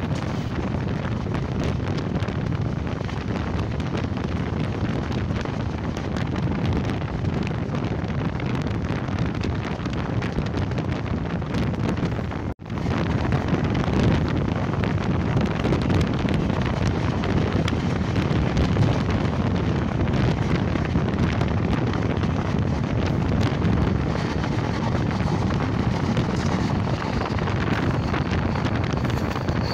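Wind buffeting the microphone over the steady running noise of the Netravati Express passenger train, recorded from the moving train. The sound drops out for an instant about twelve seconds in, then comes back a little louder.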